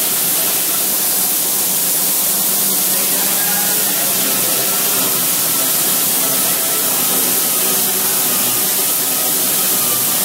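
Pneumatic orbital sander running on a sheet-metal tabletop: a loud, steady hiss of exhaust air, with a faint wavering whine coming in about three seconds in.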